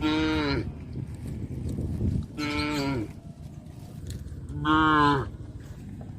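Cattle mooing: three short calls about two seconds apart, each dropping in pitch at the end. The third call is the loudest.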